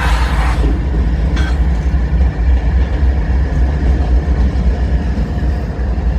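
Norfolk Southern diesel-electric freight locomotives passing, with a steady heavy low rumble and a brief hiss in the first second.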